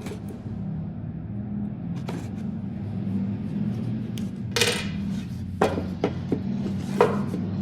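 Headphone box and packaging being handled during unboxing: a string of sharp clicks and light knocks, with a brief rustling scrape a little past halfway. A steady low hum runs underneath.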